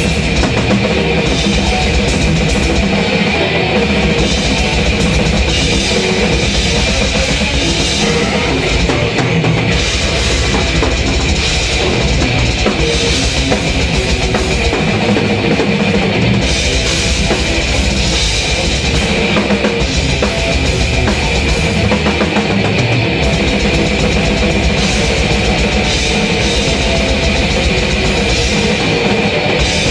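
Drum kit played live, fast and dense with cymbals, along with a heavy metal song with distorted guitar.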